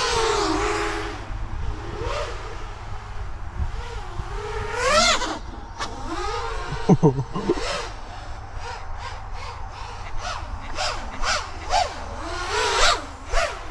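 FPV cinelifter drone's XNova 2808 1350kv brushless motors and propellers whining in flight, the pitch sweeping sharply up and down over and over as the throttle is punched and cut.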